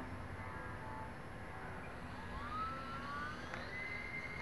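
Electric motor and propeller of a small EPP foam profile RC plane whining in flight. The whine rises in pitch about two seconds in as the throttle is pushed up, then holds steady and high.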